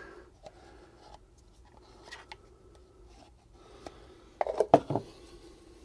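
Handling sounds on a workbench: a few faint clicks, then a quick cluster of hard knocks and clacks about four and a half seconds in, as an object is put back down.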